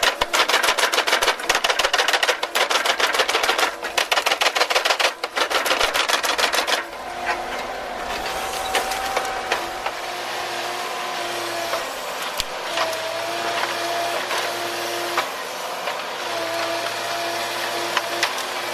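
Heavy wood-cutting machine: rapid, loud clattering of wood being cut or shredded for about the first seven seconds. Then the machine's engine runs with a steady whine and occasional clicks.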